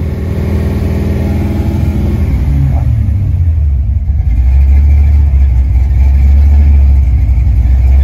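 Ford 302 (5.0) V8 running with its slipped roller rocker refitted: engine speed falls about three seconds in and it settles into a steady, low idle.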